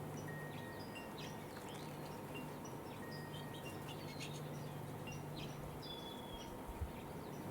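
Small songbirds chirping and calling in short, high notes, many overlapping, over a steady low background hum. A brief thump comes near the end.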